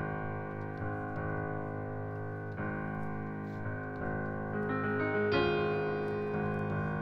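Piano playing slow, sustained chords, the chord changing every second or so, with higher notes joining about halfway through.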